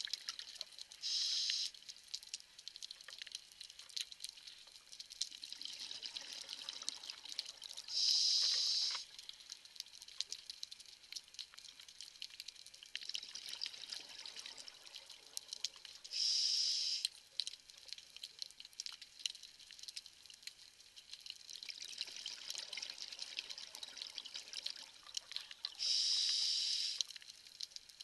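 Scuba diver breathing through a regulator underwater: four short, loud hisses of inhalation about eight seconds apart, each followed by a longer, softer stretch of exhaled bubbles. A steady crackle of reef clicks runs underneath.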